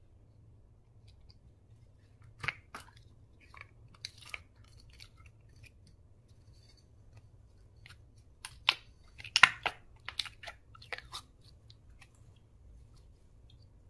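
Slime being squished and worked by hand: scattered sticky pops and crackles, in small clusters with a denser, louder run about nine seconds in.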